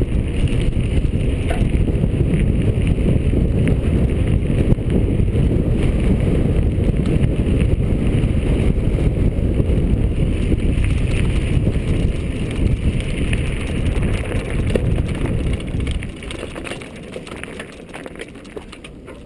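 Wind buffeting the mountain biker's camera microphone as a low rumble, with the rattle and clicks of the mountain bike rolling over rough dirt singletrack. It gets quieter for the last few seconds as the riding slows on a steep climb.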